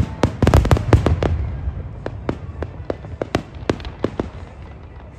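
Aerial fireworks bursting and crackling overhead: a rapid run of sharp pops over a low rumble for the first second or so, then thinning to scattered single pops.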